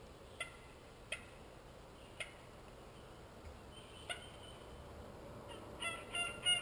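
Wild turkey gobbling near the end, a rapid stuttering call, after a few short, sharp calls spaced about a second apart.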